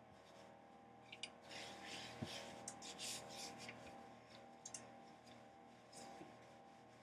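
Faint rubbing and scraping of a rolling pin rolling out buttery Danish pastry dough, with a few light knocks, over a faint steady hum.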